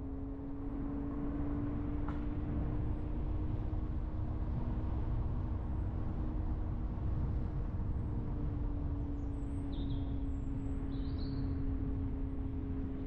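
A car driving along: steady engine drone over low road rumble, its pitch rising a little and easing back. There is a single click about two seconds in and a few faint high chirps near the end.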